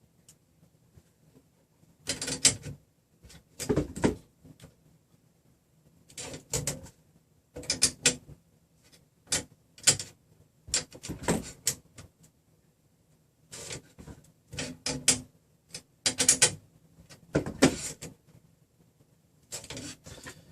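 Short clusters of light metallic clicks and scrapes, coming every second or two with quiet gaps, from hands shifting a steel rod in its clamp and handling a measuring tool while setting the rod spacing.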